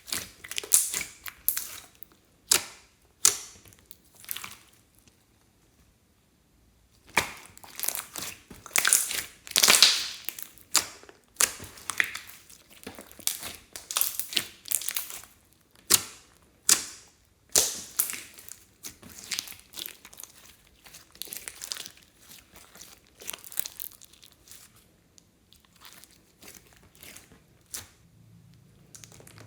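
Clear slime being squished and stretched by hand: an irregular run of short, sticky crackling pops, with a pause of about two seconds a few seconds in.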